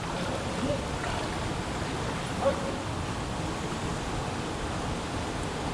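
Steady rush of flowing water from a nearby stream, with one faint brief sound about two and a half seconds in.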